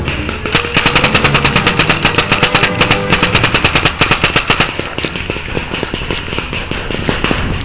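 Tippmann A5 paintball marker firing a rapid, even string of shots, close to ten a second, for about four seconds. After that, quieter and more scattered shots go on.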